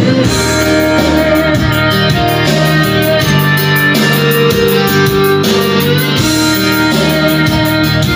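Guitar-led music with a steady beat, played loud through a small sound system as a sound test of a DB Audio 502 budget amplifier driving a speaker and a mid-high.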